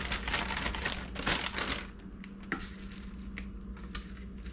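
Clear plastic zip-top bag crinkling and rustling in gloved hands as cured eggs are worked into it. The rustling is busiest for the first two seconds, then thins to a few faint rustles and clicks over a steady low hum.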